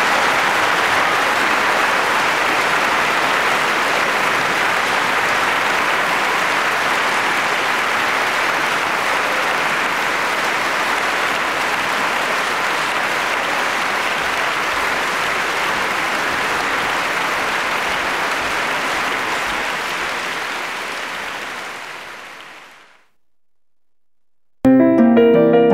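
Concert hall audience applauding steadily, the applause fading out after about twenty seconds. After a moment of silence, a grand piano starts playing near the end.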